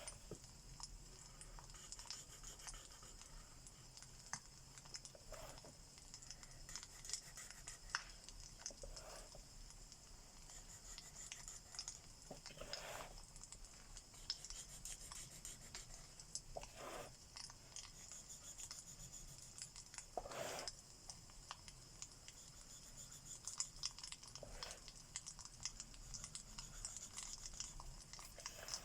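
Crackling fireplace recording: a steady hiss with many small pops throughout. Now and then comes a short soft scratch, like an alcohol marker stroked across paper.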